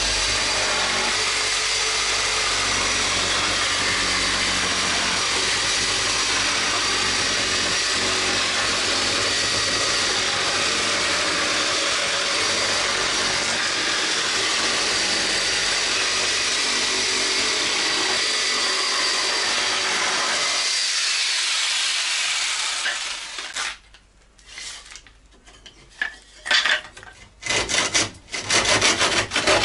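Electric jigsaw cutting a wooden cladding board, running steadily for about 22 seconds and then stopping. After it, scattered knocks and clatter of loose wooden board pieces.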